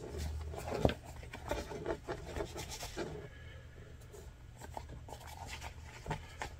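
Soft rough-out leather rustling and rubbing as a cow's knee lock cover is pulled over a flintlock rifle's lock, with scattered light taps and one sharp click about a second in. The handling is busier for the first few seconds, then quieter.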